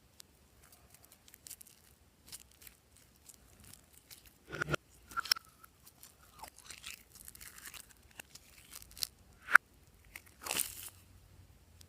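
Glossy slime being worked by hand, giving irregular sticky clicks and crackles with a few louder pops.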